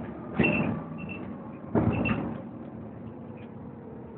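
Inside a Volvo B7TL double-decker bus on the move: the engine drones steadily. Twice, about half a second and two seconds in, there is a sudden loud clattering rattle with high squeaks from the bus body and fittings.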